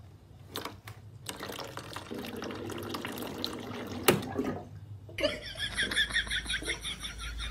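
Water dispenser tap running into its drip tray as a cat works it, with a sharp click about four seconds in. Then a cat laps water quickly from the tray, about four laps a second, over a low steady hum.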